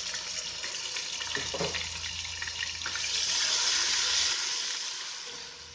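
Ginger-garlic paste sizzling in hot oil with fried onions as it is stirred in; the sizzle swells to its loudest a few seconds in and then dies down near the end.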